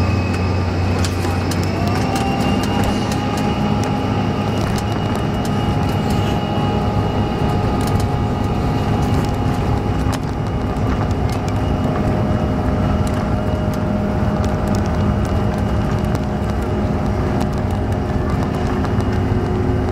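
Cabin sound of a Bombardier CRJ-700's two rear-mounted GE CF34-8C turbofans at takeoff power during the takeoff roll: a loud, steady engine whine that rises in pitch over the first two seconds and then holds, over a heavy rumble. Frequent short knocks and rattles run through it as the aircraft rolls along the runway.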